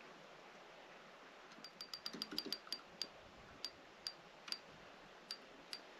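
Faint, sharp, irregular clicks and ticks as a small hooked fish is lifted out of the water on the line, starting about a second and a half in, with a brief low splash around two seconds.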